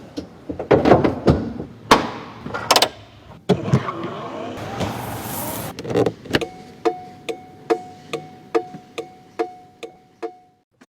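Music: a run of sharp percussive hits, then a steady beat of strikes a little over two a second over a held tone, which cuts off abruptly near the end.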